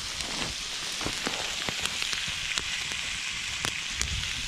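Moose meat frying in fat in a skillet over a wood fire: a steady sizzle with frequent sharp pops and crackles.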